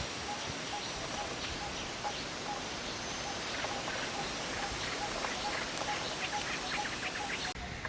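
Wild birds calling: a low note repeats over and over, while a cluster of short, higher chirps comes and goes, over a steady background hiss. The background changes abruptly just before the end.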